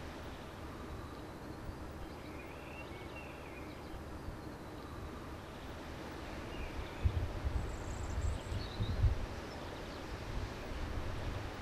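Outdoor background noise with a few faint bird chirps and low rumbling bumps about seven to nine seconds in.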